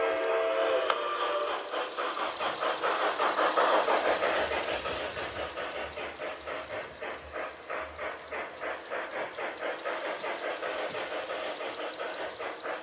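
Lionel 726 Berkshire O-gauge locomotive's built-in steam sound system: the steam whistle cuts off about a second in, then a fast, even steam chuffing rhythm carries on as the locomotive runs.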